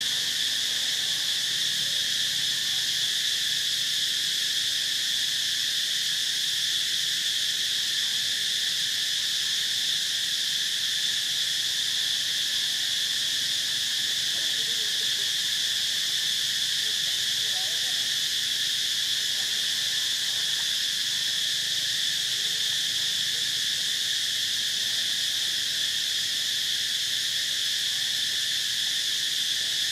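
Dense insect chorus: a steady, high-pitched drone that holds at an even level without let-up.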